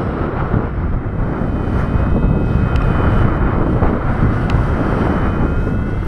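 Heavy rushing wind on the microphone of a paraglider descending fast in strong wind. It is a dense, steady roar, with faint thin high tones coming in about two seconds in.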